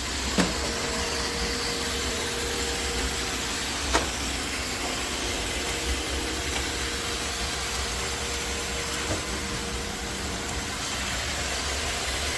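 iRobot Roomba Combo robot vacuum running, a steady hiss of suction and brushes with a low hum and a thin steady whine. Two sharp clicks, about half a second in and about four seconds in.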